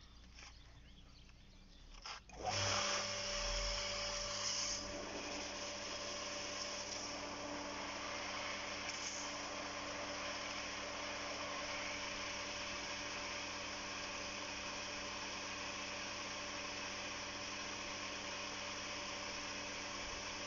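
Toom garden pump (house water automat) switching on about two seconds in and then running steadily: an electric motor hum with a hiss over it, loudest for the first couple of seconds before settling.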